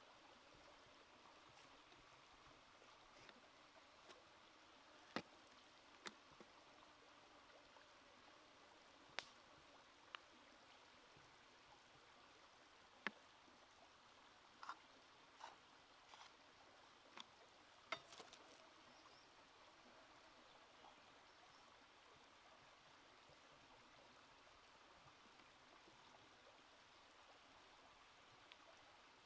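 Near silence: a faint, even hiss like running water, broken by about ten sharp little clicks and taps, mostly in the first two-thirds, from threading raw squid and tomatoes onto bamboo skewers.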